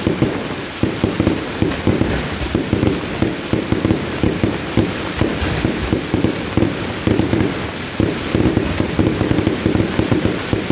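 Aerial fireworks display in a fast barrage: rising comets and shells bursting one after another, several bangs a second without a break, easing briefly about eight seconds in before picking up again.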